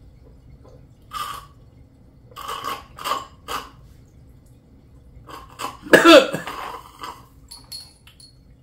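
Short gulping and breathing noises from people swallowing a super-hot chili sauce, then a loud, strained voiced cough about six seconds in.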